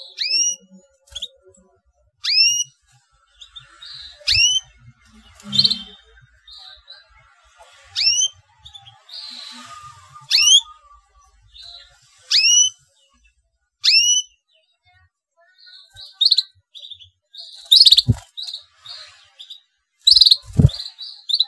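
Domestic canary giving a sharp rising 'cuit' call about every two seconds, then quicker runs of short chirps over the last few seconds. Two dull thumps near the end come as it flutters its wings in the cage.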